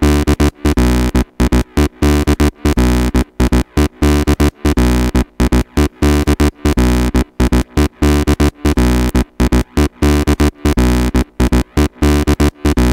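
Electronic techno track playing back from FL Studio at 120 BPM, with heavy bass and a synth line chopped into rapid on-off stutters.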